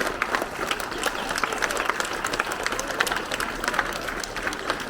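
A school assembly audience applauding steadily, with many hand claps overlapping into a continuous patter. The applause greets a prize winner who has just been named.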